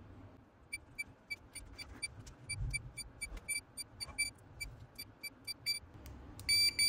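Diagnostic multimeter (continuity tester) giving a rapid run of short, high electronic beeps, about four a second, as its probe is stepped across the pins of a refrigerator door knock-sensor board. A longer double beep comes near the end.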